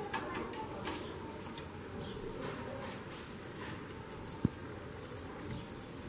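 Female chorão (white-bellied seedeater) giving short, high-pitched calls about once or twice a second: the 'xaxando' call of a hen in breeding heat. A few light clicks near the start and one sharp knock about four and a half seconds in.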